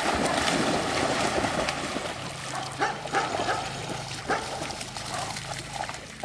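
Dogs splashing as they wade and swim through shallow pond water, the churning heaviest in the first second or so, then lighter with a few short, sharp splashes.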